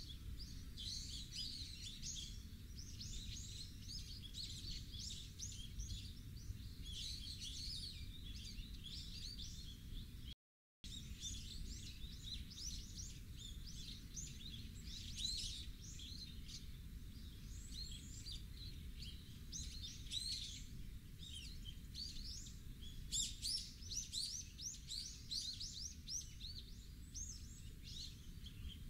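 Many small birds chirping, a dense run of short, high calls over a steady low rumble. The sound cuts out completely for a moment about ten seconds in.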